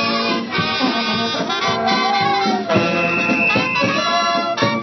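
Marching band playing a brass-led tune on the move, with trombone, clarinets, saxophone and horns over bass drum beats.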